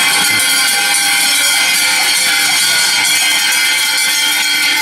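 Many cowbells on a herd of cattle walking past, ringing and clanging together in a continuous, dense jangle.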